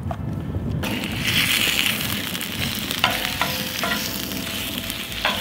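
Bacon sizzling in a steel frying pan over an open campfire. The hiss starts about a second in, and a few metallic clinks come as a knife moves the strips around the pan.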